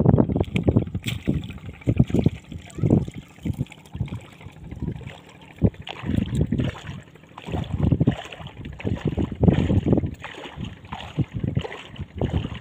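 Wind buffeting the microphone in irregular low gusts, over faint water sounds.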